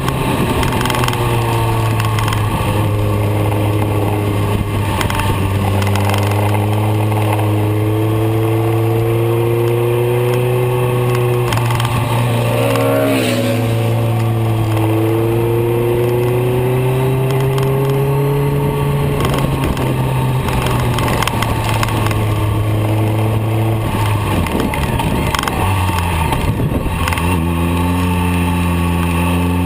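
BMW K1300R inline-four engine running under way, heard from the rider's position, with steady wind noise. The engine note holds fairly steady with small rises and falls, wavers briefly about halfway through, and climbs near the end as the bike accelerates.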